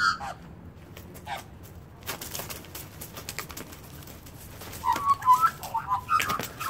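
Australian magpies fighting: a flurry of wing beats and scuffling about two seconds in, then a run of short, jumpy calls from the birds near the end.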